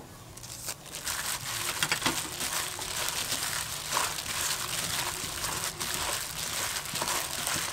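A hand in a thin plastic glove mixing seasoned shrimp in a stainless steel bowl: a steady run of crinkling and wet rustling, beginning about a second in.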